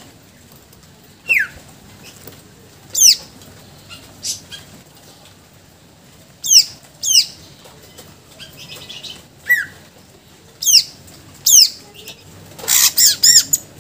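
Caged greater green leafbird (cucak ijo) calling: sharp, high whistled notes that sweep steeply down in pitch, given singly or in pairs every second or two. A quick run of several notes comes near the end.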